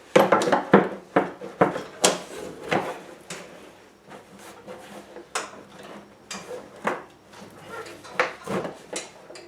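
Bagger collection chute being worked onto a lawn tractor's mower deck: a string of irregular knocks, clunks and rattles as the part is shoved and wiggled to seat it in its track, loudest in the first couple of seconds.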